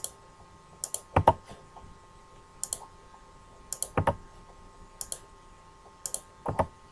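Computer mouse clicks, single and in quick pairs, about one a second, as wires are placed and ended by clicking and double-clicking in a schematic editor.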